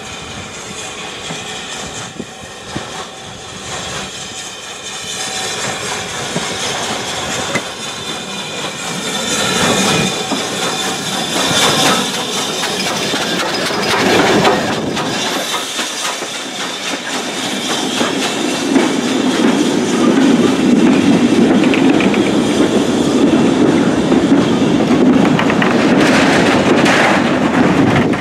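BR Standard Class 4MT 2-6-0 steam locomotive No.76017 drawing in and passing close by, with steam hissing as it goes alongside. Its goods wagons follow, rolling past with a steady rumble and their wheels clacking over the rail joints, growing louder.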